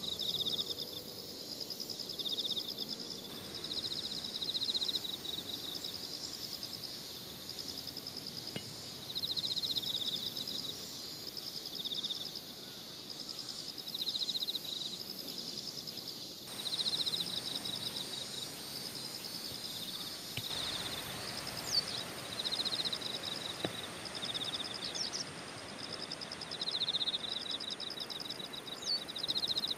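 Insects chirping in a steady, high, pulsed trill, with louder bouts of chirping every few seconds. A few short sharp chirps come in over it in the second half.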